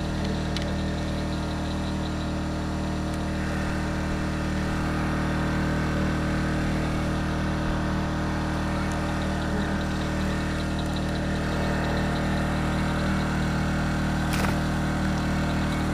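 Small engine running at a constant speed, a steady hum with no change in pitch. A single sharp click comes about a second before the end.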